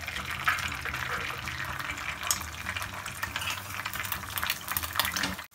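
An egg frying in oil in a non-stick pan: a steady sizzle with small crackles and pops. The sound cuts out for a moment near the end.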